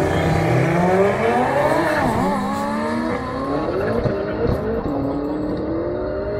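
Drag-race cars launching off the start line and accelerating hard away, the engine note rising through the gears and dropping at upshifts about two and five seconds in.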